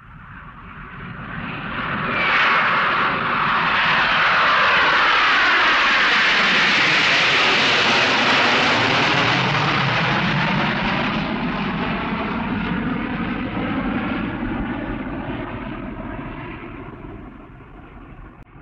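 Jet airliner passing over, its engine noise swelling over the first few seconds, holding loud, then slowly fading away.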